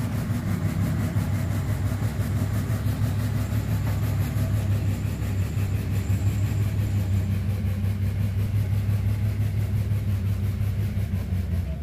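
A heavy truck's diesel engine running steadily at low revs.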